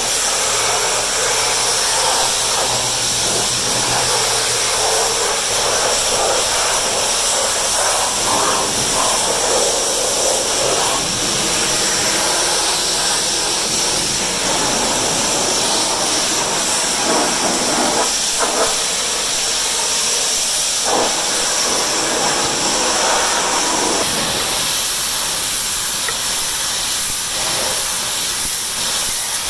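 Pressure washer jet hissing steadily as it blasts the lawn mower's deck, wheels and caster wheels, its tone changing now and then.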